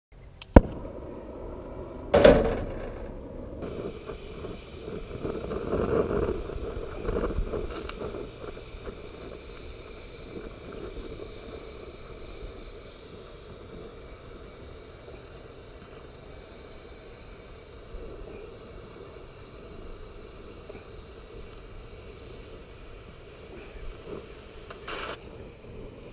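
Welding in progress: a steady rough hiss of the torch or arc, with two sharp knocks in the first couple of seconds.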